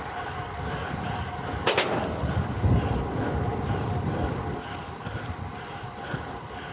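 Wind buffeting the microphone in a low, uneven rumble over a faint steady hum, with a sharp rushing burst a little under two seconds in.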